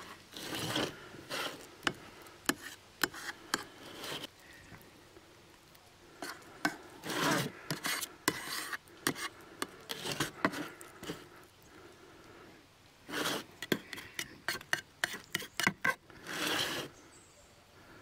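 A knife scraping and clicking against a pan and its pastry, in irregular strokes: sharp taps mixed with a few longer scrapes of about a second.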